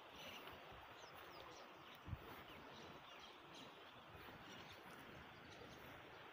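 Near silence: faint outdoor ambience with a few faint bird chirps, and a single soft thump about two seconds in.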